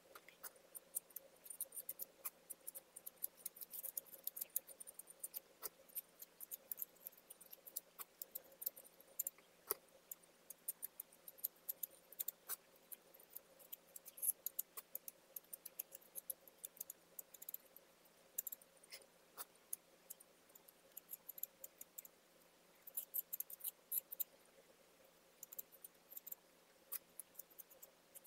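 Metal palette knife spreading textured decorative plaster over a glass bottle: many quick, irregular light scrapes and clicks as the blade strokes across the glass and plaster.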